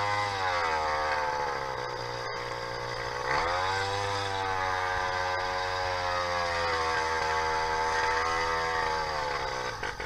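YD100 two-stroke bicycle engine with a window piston running at speed. Its revs dip and climb back twice, most sharply about three seconds in, then the sound cuts off abruptly at the end.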